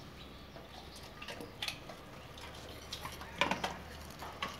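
A few faint light clicks and clinks, scattered and irregular, over a low room hum.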